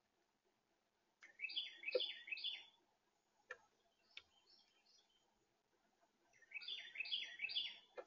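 A songbird singing two short phrases of quick, repeated downslurred notes, a few seconds apart, with a few sharp taps in between.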